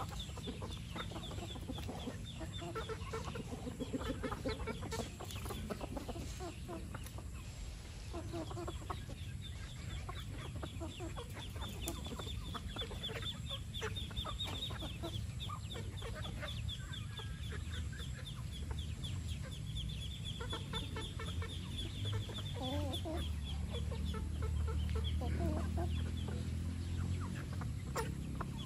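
Flock of free-range chickens clucking as they feed, with short scattered calls over a continuous rapid high ticking chirr. A low rumble swells for a few seconds near the end.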